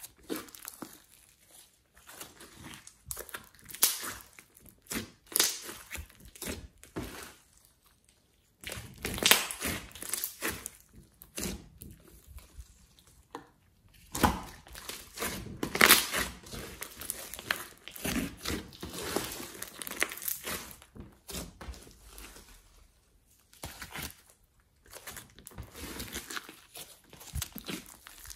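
Hands squeezing, folding and stretching a big mass of glossy slime: irregular crackling clicks and sticky handling noises, with a few short pauses.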